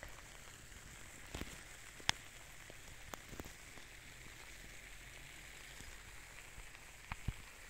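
Steady rain pattering, with a few sharp drop ticks scattered through it; the loudest comes about two seconds in.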